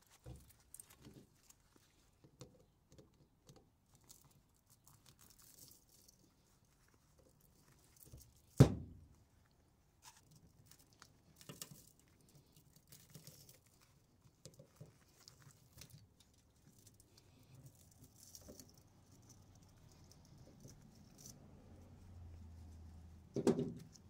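Pliers pulling copper winding wire out of a ceiling fan motor's stator: faint scattered clicks and scrapes of wire and metal, with one sharp, loud snap about nine seconds in and a knock near the end.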